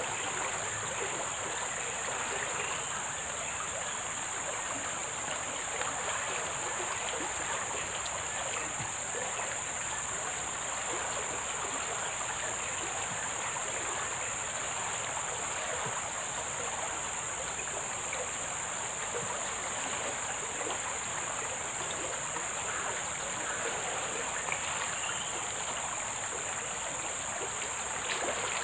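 Flowing river water, a continuous even hiss with no breaks, with a steady high-pitched tone above it.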